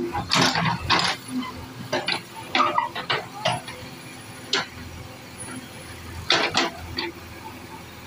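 JCB 3DX backhoe loader's diesel engine running steadily while the bucket digs into soil, with a series of short scraping and clanking bursts in clusters, mostly in the first half and again near the end.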